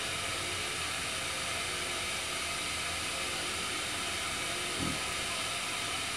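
Pocket canister gas camp stove burning under a pot: a steady hiss, with one short low sound near the end.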